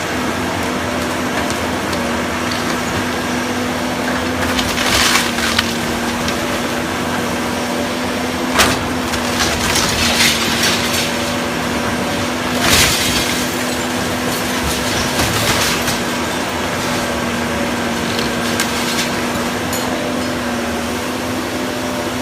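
Wooden building being torn down: wood cracking and splintering in several sharp breaks, over the steady hum of a machine's engine running throughout.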